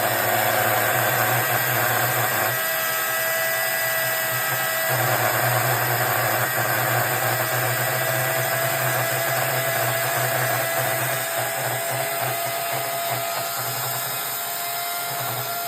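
Oregon electric chainsaw running with a steady, high motor-and-chain whine. A lower hum under it drops out for a couple of seconds about two and a half seconds in, then returns.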